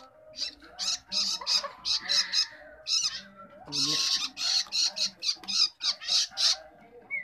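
Baby long-tailed shrike begging to be fed: a rapid run of short, harsh, raspy squawks, several a second, with brief pauses between bursts.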